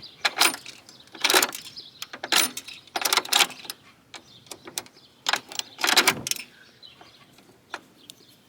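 Coin-operated animal feed dispenser being worked by hand: a series of metallic rattles and clanks as its crank is turned and shaken, the loudest about six seconds in. The mechanism is stuck, with a coin jammed inside.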